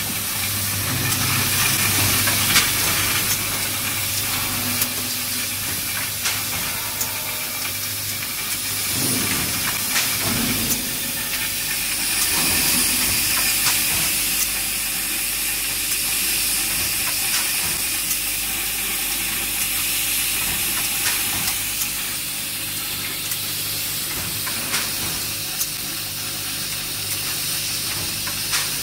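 Quad-seal coffee bag packaging machine running: a steady hiss with frequent small clicks and knocks over a low hum.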